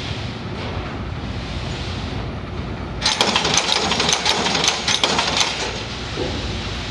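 Eyelet-setting machine punching brass eyelets: a steady machine hum, then about three seconds in a rapid metallic clatter of quick strokes, roughly eight a second, for about two and a half seconds.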